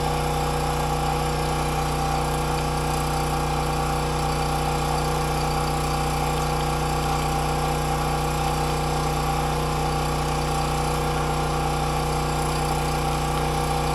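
Champion open-frame portable generator, a conventional rather than an inverter generator, with its engine running steadily under about a 2000-watt load. The engine hum holds an even pitch and level throughout.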